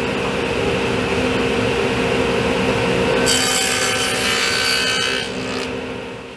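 Table saw with a dado blade stack running with a steady hum, then cutting a dado into a pine board: a harsher, higher cutting noise joins about three seconds in and lasts about two seconds. The sound fades near the end.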